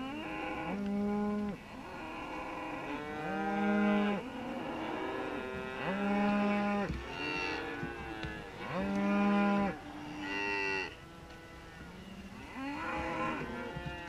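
Beef cattle mooing: a string of long moos, one every two to three seconds, followed by a couple of shorter calls near the end.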